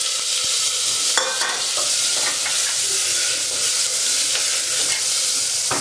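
Whole potatoes frying in hot oil with a cumin and red-chilli tempering, in a pressure-cooker pot: a steady, loud sizzle. The potatoes are stirred with a wooden spatula, with a couple of sharp knocks, one about a second in and one near the end.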